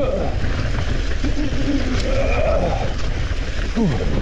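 Mountain bike running down a dirt downhill trail: wind buffeting the microphone and tyres rolling and rattling over dirt and rocks, a steady loud rumble, with a few brief pitched sounds about halfway through and near the end.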